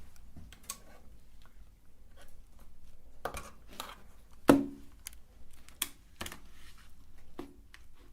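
Candy being crushed in a meat grinder: irregular sharp cracks and clicks, the loudest about four and a half seconds in.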